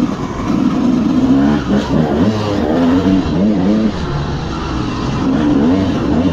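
Dirt bike engine revving, its pitch rising and falling again and again as the throttle is worked.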